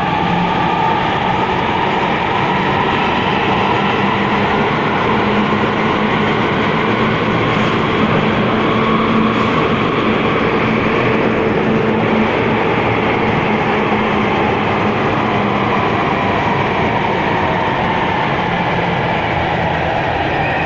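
Athens Metro train running at speed through a tunnel, heard from inside the car: a steady loud rumble and rail noise, with a whine that rises in pitch over the first half and falls away toward the end.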